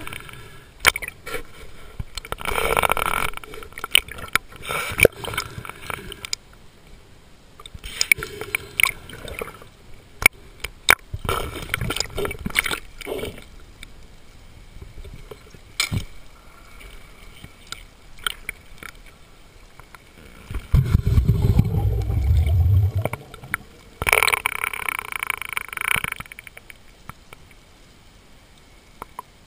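Underwater sound of bubbles gurgling and hissing in bursts every few seconds, typical of a diver's exhaled breath, with scattered sharp clicks and knocks throughout. A low rumble comes in about two-thirds of the way through.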